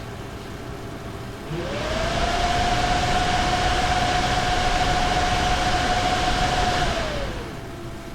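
NVIDIA GeForce RTX 2070 Super graphics card fans revving up on their own about a second and a half in, holding a louder, higher whine for about five seconds, then spinning back down near the end. This unprompted surging of the fan speed in automatic fan mode is the fault being shown.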